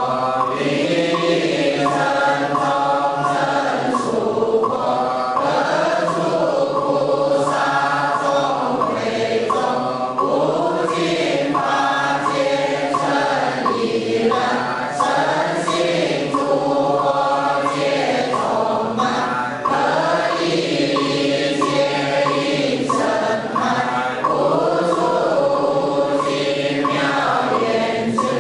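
A group of voices chanting a Buddhist mantra together in a steady, sung recitation, with wooden fish (muyu) knocks keeping the beat.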